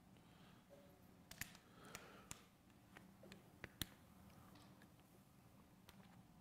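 Near silence: room tone, with a few faint, short clicks in the first four seconds.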